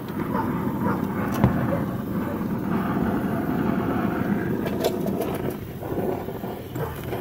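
Cutting torch flame hissing steadily while it heats the seized, broken rear shock bolt toward cherry red before it is cut out. A few sharp knocks come about a second and a half in and again around five seconds in.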